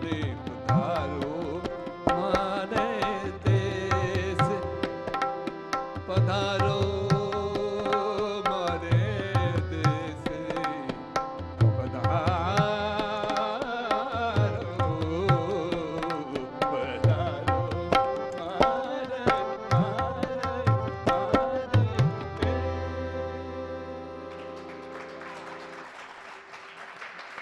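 Hindustani classical music: tabla strokes in a steady rhythm under a harmonium and a singer's gliding, wordless melodic runs. About 22 seconds in, the piece closes on a final low ringing stroke from the bass drum of the tabla, with a harmonium chord held under it, and both slowly fade away.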